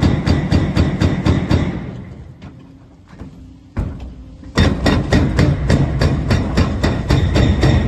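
Excavator-mounted hydraulic breaker hammering at about five blows a second, stopping for a couple of seconds with one lone blow, then starting up again.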